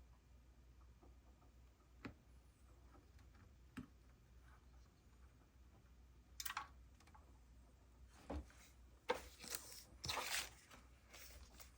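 Handling noises over a low steady hum: two light clicks in the first few seconds, then a run of short, louder rough noises in the second half.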